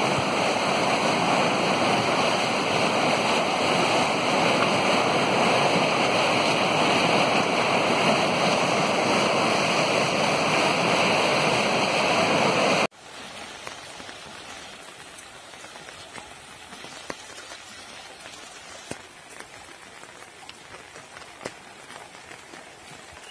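Loud, steady rush of water. About halfway through it cuts off abruptly to a much quieter hiss with scattered faint ticks.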